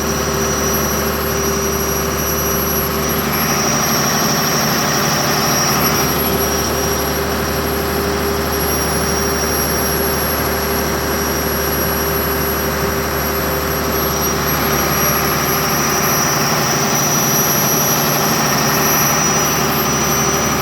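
Cummins 6BT inline-six diesel generator set running steadily, with a constant engine drone and a thin high steady whine over it, being run on load test after repairs.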